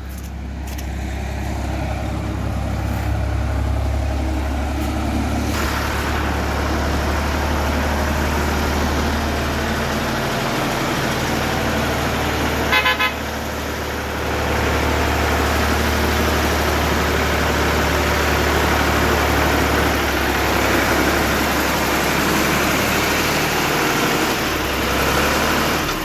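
Farm tractor engine running steadily with a low drone, getting louder about halfway through as the tractor moves in close. There is a brief horn-like toot about 13 seconds in.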